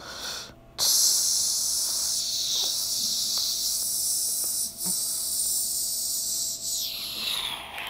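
A long, steady hiss that starts about a second in, holds for about six seconds and then fades out.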